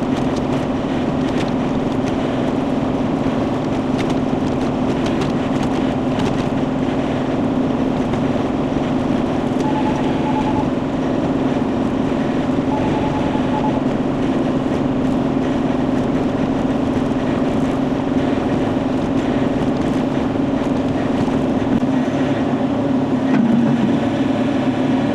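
Diesel engine of a Bobcat E42 compact excavator running steadily under work, with a slight dip in pitch near the end. Two short runs of faint beeping about ten and thirteen seconds in.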